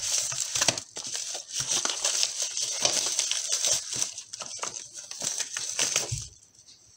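Crinkly wrapping crackling and rustling as a small DIN-rail energy meter is pulled out of its packaging by hand, in quick irregular crackles that stop about six seconds in.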